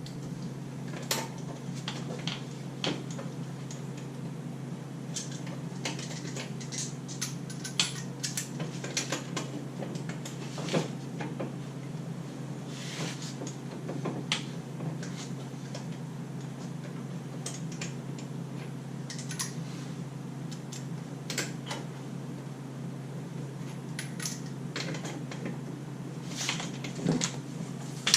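Scattered metallic clinks and taps of hand tools and brake parts being handled, over a steady low hum.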